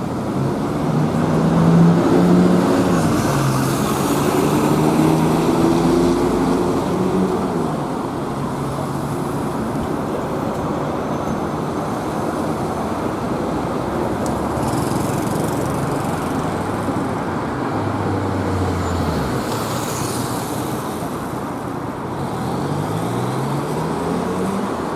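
Street traffic with motor vehicles passing: a steady rumble of engines and tyres, a louder engine passing a couple of seconds in, and an engine rising in pitch near the end as a vehicle speeds up.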